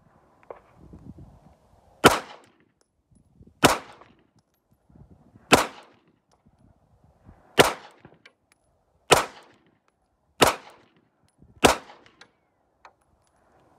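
Beretta 92FS 9mm pistol fired seven times at a slow, deliberate pace, one shot every one and a half to two seconds, each a sharp crack with a short ringing tail.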